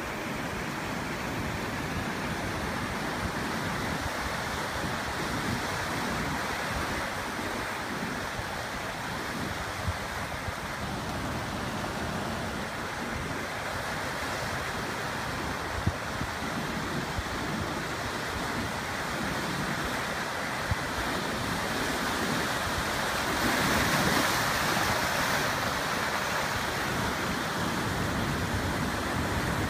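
Ocean waves breaking and washing over the shore and its tide pools as a steady rush, swelling louder with a bigger surge about two thirds of the way through.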